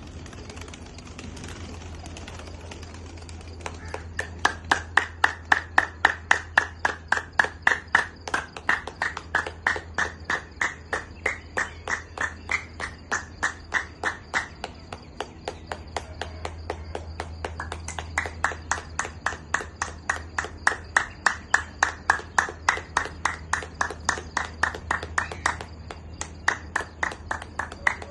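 A rapid, even run of sharp claps or clicks, about three a second, in two long stretches with a short break in the middle. Crickets trill steadily underneath.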